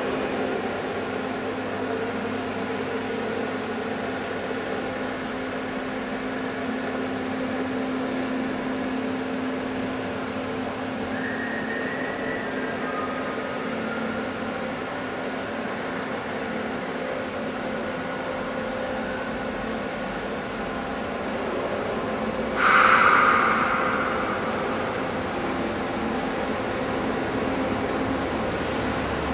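Steady hum of welding-cell machinery and ventilation while the Kawasaki robot arm moves into position, with a brief higher whine near the middle. About 23 seconds in, a sudden loud burst of hiss fades away within about a second.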